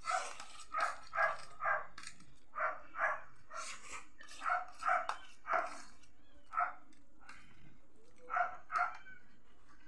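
A dog barking off camera: about eleven short barks, in twos and threes with pauses between.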